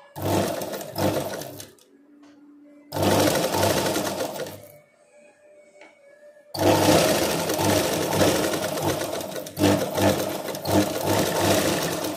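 Sewing machine stitching a shoulder seam in three runs: a short run right away, another about three seconds in, and a longer one from about six and a half seconds in, with brief pauses between as the fabric is repositioned.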